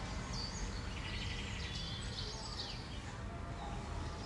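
Small birds chirping in the background, with short high chirps and a rapid trill, over a steady low room rumble.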